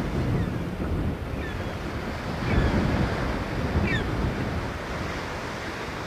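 Steady rushing noise of wind and surf, with wind buffeting the microphone. A few faint, short high chirps come through around the middle.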